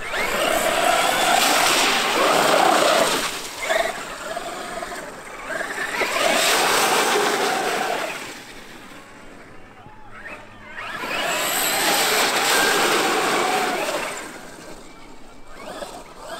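Traxxas X-Maxx brushless electric RC monster truck driving hard over wet sand, its motor and drivetrain whining under throttle while the tyres throw up spray. Three loud runs with quieter stretches between them.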